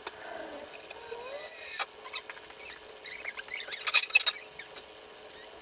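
Wooden 2x4 kayak-stand frame squeaking and creaking as it is held and worked on, with a short burst of sharp clicks about four seconds in as a cordless drill drives a screw at its base.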